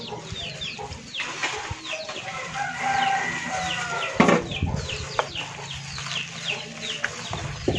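Chickens calling nearby: a steady run of short falling peeps, with a longer drawn-out call from about two and a half to four seconds in. A single sharp thump just after four seconds is the loudest sound.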